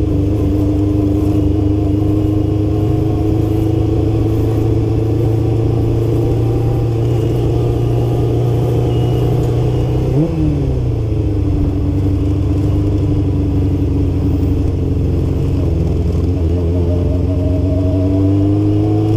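Kawasaki GPX600R's inline-four engine running under way in second gear, its pitch slowly climbing. About halfway through the revs jump briefly and drop away, then they build again near the end.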